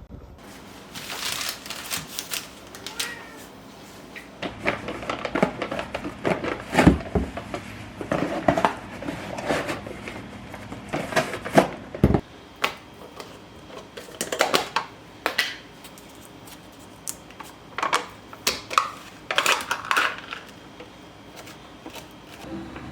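Irregular clicking and clattering of dishes and utensils being handled, with sharp knocks at uneven intervals.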